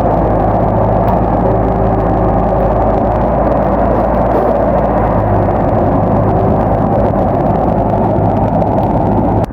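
Heavy diesel engine of a bulldozer running steadily under load.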